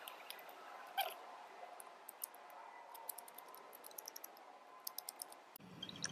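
Faint scattered clicks and crackles of bark being stripped from a green blueberry branch, with one sharper click about a second in and a run of fine ticks through the middle.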